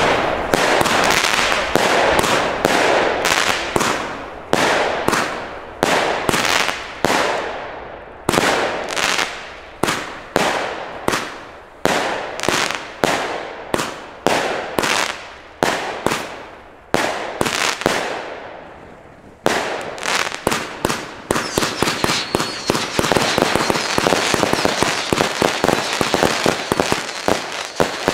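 Albert 'Extreme Terror' firework battery (48 shots, 20 and 24 mm) firing: a steady run of shots, each a sharp bang with a fading tail, about two a second. About two-thirds of the way through it breaks into a dense, rapid barrage of shots for the finale.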